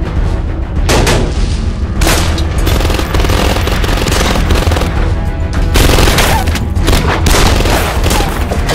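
Several long bursts of automatic gunfire over background music.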